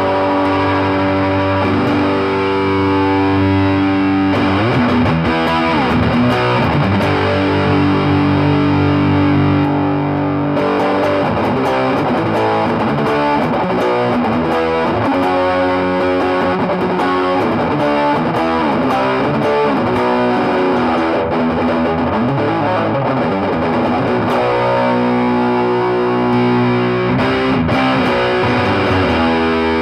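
Electric guitar played through a Mesa Boogie 5:25 Express 1x10 combo amp with a distorted tone. Held chords give way to quicker riffing and single notes, and held chords return near the end.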